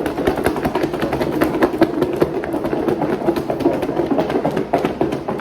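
Sliced cucumbers and seasonings being shaken hard inside a closed lidded container: a fast, continuous rattle of knocks against its walls.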